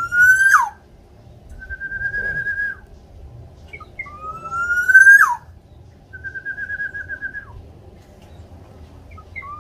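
Black-naped oriole calling with clear whistles. A rising whistle that snaps sharply downward at its end alternates with a level, quavering whistle, twice each. A third rising whistle begins right at the end.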